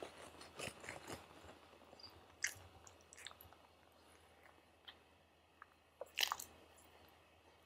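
Soft scattered mouth clicks and smacks from a German Shepherd puppy licking and mouthing at a kitten, with faint fur rustling; the loudest cluster comes about six seconds in.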